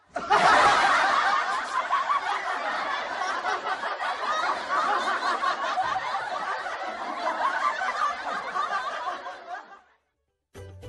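Many people laughing at once, a dense mass of overlapping laughter that starts suddenly and fades out near the end.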